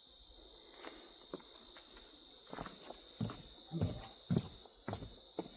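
Steady high chorus of insects, likely crickets, with scattered small clicks and a few dull knocks a little past the middle.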